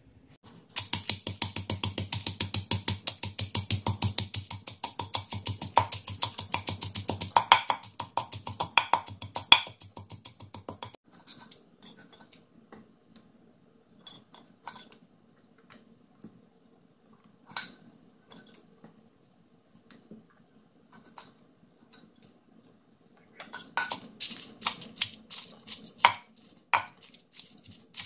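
Wooden pestle pounding in an earthenware mortar, crushing garlic, dried chillies and tomatoes. A fast, dense run of strokes over a steady low hum cuts off suddenly about eleven seconds in, leaving scattered single knocks, and steady pounding resumes near the end.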